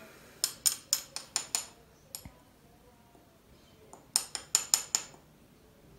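Spice jar of ground cinnamon shaken over a metal spoon: two runs of quick clinks, about six each, one near the start and one about four seconds in.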